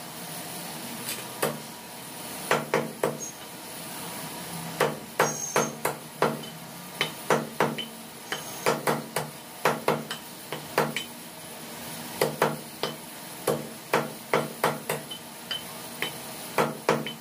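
Heavy meat cleaver chopping chicken pieces on a wooden log chopping block: a run of sharp, irregular chops, often two or three in quick succession.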